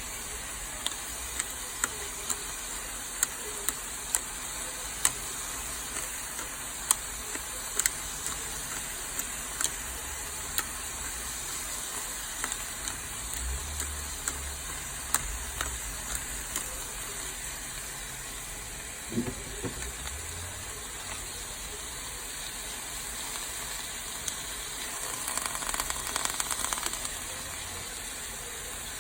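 Vegetables sizzling in a hot pan as they are stir-fried, a steady hiss with sharp taps about once a second over the first ten seconds and scattered ones later, swelling into denser crackling near the end.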